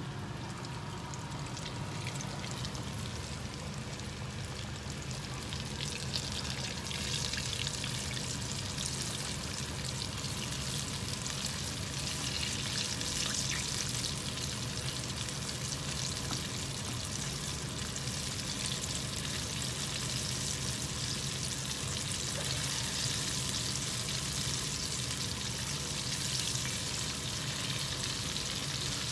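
Battered chicken pieces deep-frying in a pan of hot oil: a steady crackling sizzle that grows louder about six or seven seconds in.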